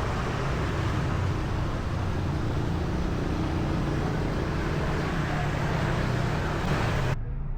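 Street traffic: vehicle engines running with steady road noise. It changes abruptly near the end to a quieter, duller background.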